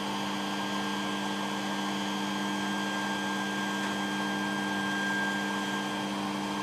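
Creality Ender 3 3D printer running mid-print: a steady whirring hum with a few constant tones over a soft hiss, unchanging in pitch.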